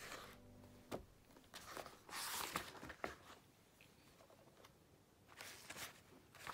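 Pages of a thick paperback workbook being flipped and handled: several soft paper swishes and rustles with a few light taps.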